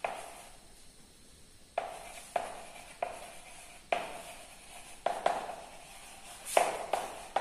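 Chalk writing on a blackboard: about ten short, irregular strokes, each a sharp tap followed by a brief scratch as the letters are formed.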